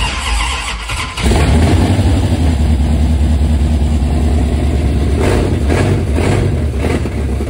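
Chrysler 440 big-block V8 cranking, catching about a second in, then running loud and steady on gasoline poured straight into the carburetor, with no fuel in the tank to feed it.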